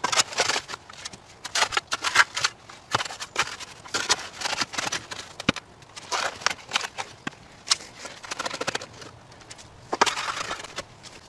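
Long-handled shovel digging in a hole of soil: a run of irregular gritty scrapes and crunches as the blade is worked into the dirt.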